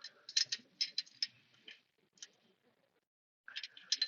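Irregular, sharp metallic clicks and ticks from hand tools working on a small-block Chevy's distributor area: a quick cluster at the start, one lone click in the middle, and another cluster near the end.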